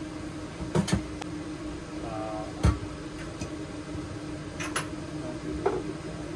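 Scattered sharp knocks and clatter as a stainless steel sink and tools are handled while the sink is set into a camper countertop, over a steady low hum.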